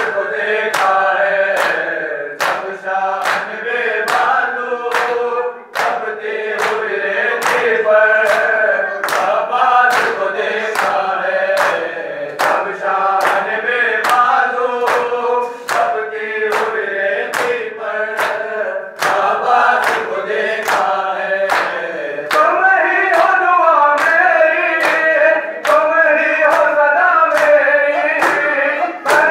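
Men's voices chanting a noha lament together while bare-chested mourners beat their chests with open palms in matam, the slaps landing in a steady rhythm a little faster than one a second.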